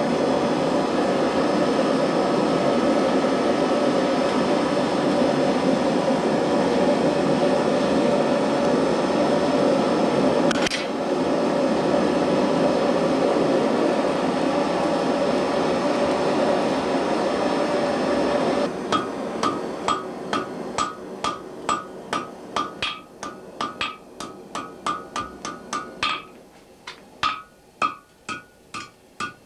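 A loud steady rushing noise, then, about two-thirds of the way through, a blacksmith's hammer striking hot iron on an anvil: a quick run of ringing blows, about three a second, thinning out to slower single strikes near the end.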